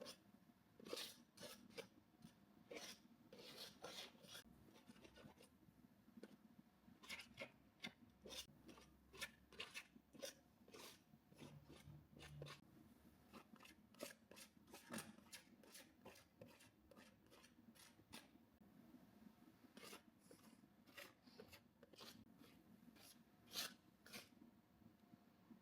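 Paintbrush working acrylic paint onto canvas: short, dry scratchy strokes, coming irregularly and at times several a second, with brief pauses between runs of strokes.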